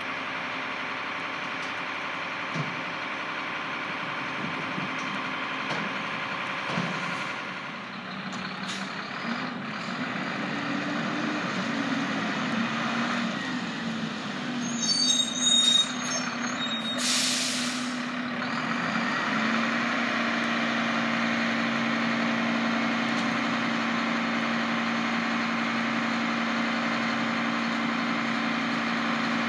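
Mack LR garbage truck's engine running as the truck pulls up and stops, with a brief squeal and then a loud hiss of air brakes about halfway through. The engine then idles with a steady hum.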